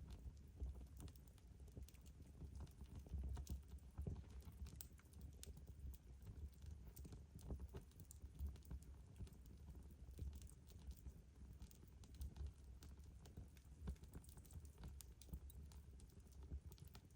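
Wood fire crackling in a fireplace: quiet, irregular snaps and pops over a low rumble.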